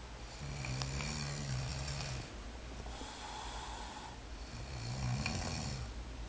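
A sleeping person snoring: two buzzing snores on the in-breath, about four seconds apart, with a breathy out-breath between them.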